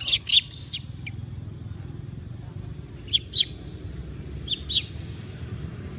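Baby long-tailed macaque crying in short, high-pitched distress squeals as another monkey grabs at it: three right at the start, two about three seconds in, and two more a second and a half later.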